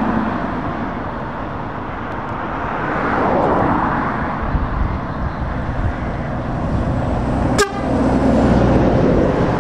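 Road traffic: heavy trucks and cars passing close by, their engines and tyres running, swelling as a box truck goes past about three seconds in. A single sharp click cuts through about three quarters of the way through.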